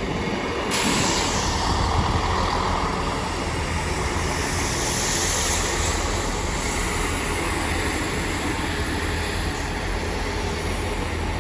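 Class 158 diesel multiple units running into the platform: a steady low diesel engine hum, with a sudden loud hiss starting about a second in.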